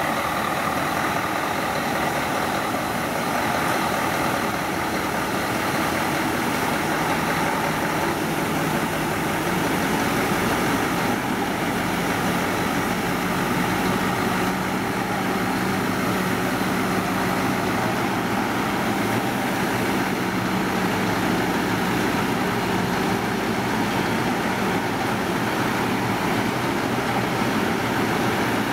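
Mercedes-Benz heavy-haulage tractor unit's diesel engine running at low revs as it slowly pulls a heavy-load vessel-bridge trailer, a steady drone with a low hum that comes in about seven seconds in.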